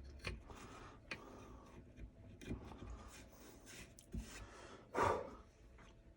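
Hand-tool work on a wooden rifle stock: scattered light scrapes and taps, with one louder, brief scrape about five seconds in.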